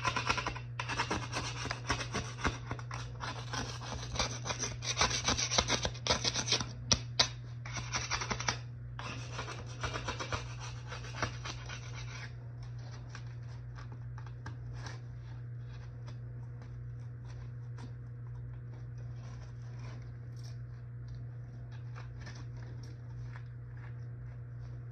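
Rough scraping and rubbing in repeated strokes with short breaks for about twelve seconds, then only soft scattered ticks over a steady low hum.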